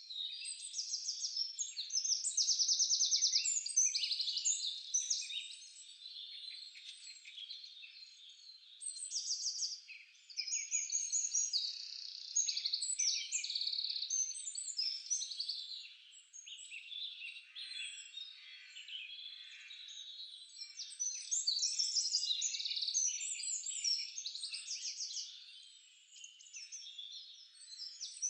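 A chorus of many small birds singing at once, with overlapping chirps and fast trills that swell and fade in waves.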